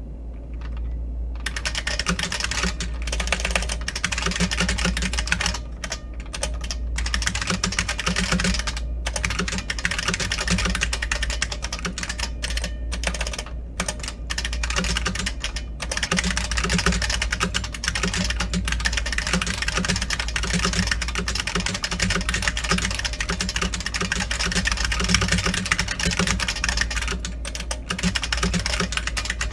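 Fast continuous typing on a New Model F F77 keyboard with buckling-spring switches, fitted with Unicomp keycaps: a dense clatter of keystrokes with a few brief pauses, starting just over a second in.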